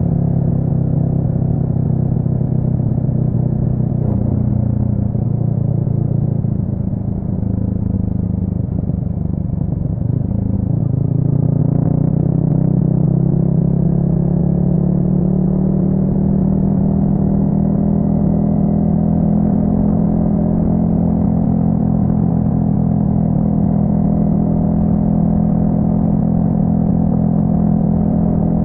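Yamaha XSR 155's single-cylinder four-stroke engine running through an aftermarket full exhaust while riding. The note eases off for a moment about seven seconds in, then picks up again and holds steady.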